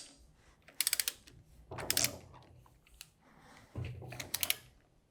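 Ratchet of a torque wrench clicking in three short runs of rapid clicks while torquing a pump rotor's jam nut.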